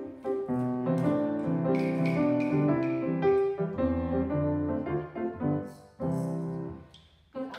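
Piano playing the introduction to a children's song, with a short break in the playing near the end.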